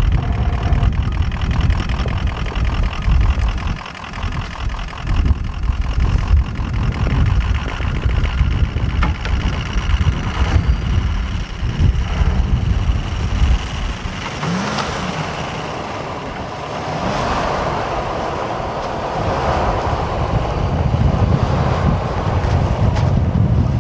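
Pickup truck engines running under load as a Ram pickup tows a stuck pickup out of deep snow on a tow strap, the engine revs rising briefly a couple of times about halfway through. Heavy low wind buffeting on the microphone runs underneath.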